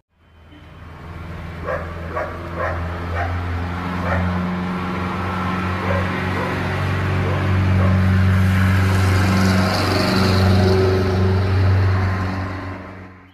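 A dog barking in short barks during the first few seconds, over a steady low engine hum that grows louder later on.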